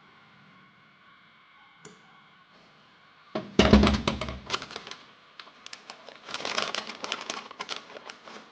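A heavy thump about three and a half seconds in, followed by quick clicking and rattling, then a second run of rattling clatter with scattered clicks: hands handling tools and hardware.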